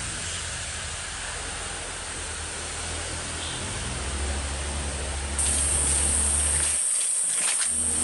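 Forest ambience with a steady hiss, joined abruptly about five seconds in by a loud, high, steady insect drone.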